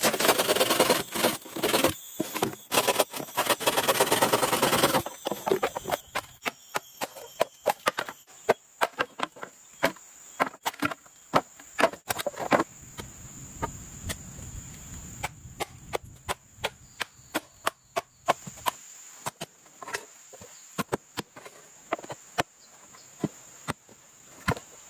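About five seconds of dense scraping and rustling, then a long run of sharp, irregular knocks and taps: hand work on bamboo or wood.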